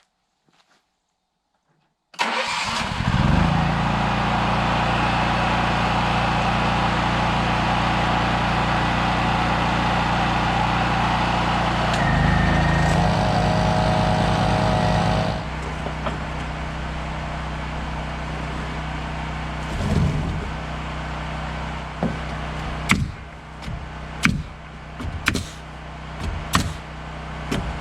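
An engine starts suddenly about two seconds in and runs steadily. About halfway through it settles to a quieter, even running. Near the end, several sharp knocks sound over the engine.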